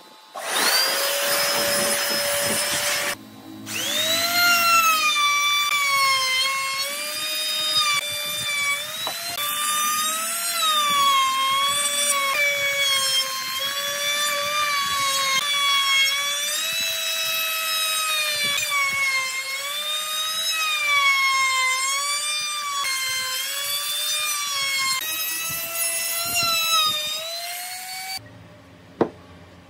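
Handheld trim router running at high speed and cutting along the edge of an end-grain wooden tabletop. Its whine dips and recovers again and again as the bit takes the cut. It starts up, cuts out briefly, starts again, and stops abruptly near the end.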